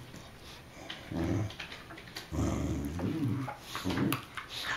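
Dogs play-growling and grumbling: a short growl about a second in, then a longer run of wavering growls.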